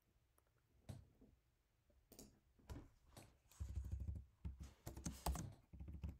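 A few single clicks, then rapid typing on a computer keyboard from a little past halfway.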